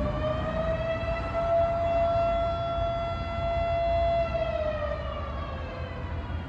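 Model 5 outdoor warning siren sounding its weekly test: a single steady wail that holds its pitch for a few seconds, then begins sliding down in pitch as it winds down, over a low background rumble.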